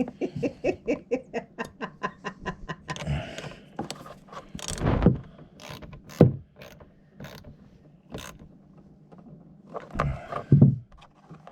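Hand wrench ratcheting with a quick, even run of clicks, then a few separate knocks, as a nut is worked on the battery connection.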